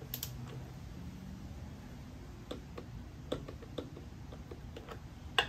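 A few scattered light metallic clicks and taps of hand tools working on the front wheel bolts, with one sharper click near the end.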